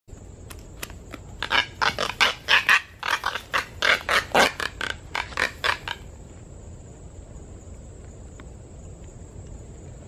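A white seabird struggling in a coconut crab's grip: a rapid run of harsh, raspy bursts, about four or five a second, for some four seconds, then stopping. After that only a steady faint background hiss with a thin high whine is heard.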